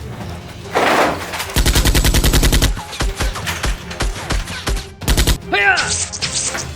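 Automatic gunfire sound effects: rapid bursts of shots at about ten a second, with scattered single shots between bursts and a whoosh just before the first burst.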